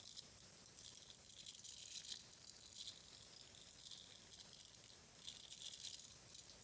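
Close-miked ASMR trigger sounds: faint, crisp crackling and scratching in short clusters, about five of them, with a lull of about a second between groups.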